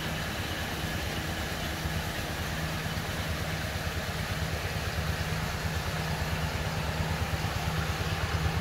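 An engine running steadily, a low, fast, even pulsing hum that grows slightly louder toward the end.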